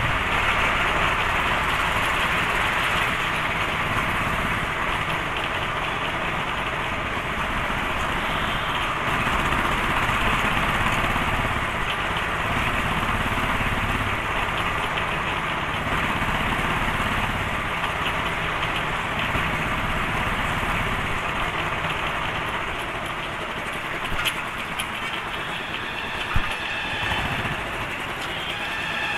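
Royal Enfield Thunderbird's single-cylinder engine running under way, mixed with steady wind and road noise; it is a little quieter near the end.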